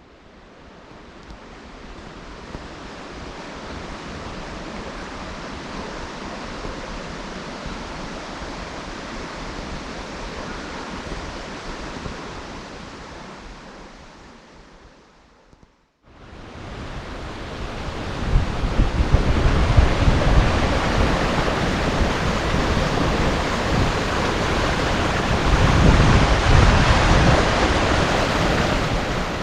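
Steady rushing roar of a waterfall. It fades out about halfway through and returns louder, with wind buffeting the microphone in low gusts.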